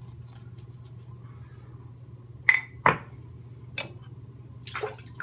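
A metal safety razor clinking against a hard surface: four sharp clinks, the first two close together and loudest about two and a half seconds in, then two more about a second apart, over a steady low hum.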